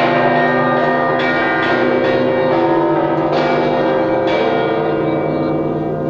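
Church bells ringing together: several bells struck again and again at uneven intervals, their tones ringing on and overlapping.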